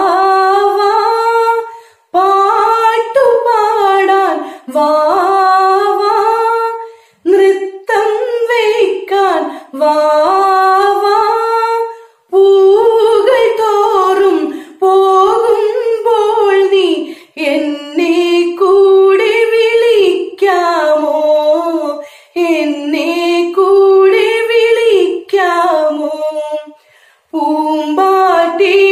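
A woman singing a Malayalam children's action song alone, with no accompaniment. She sings in phrases of a few seconds with short pauses between them.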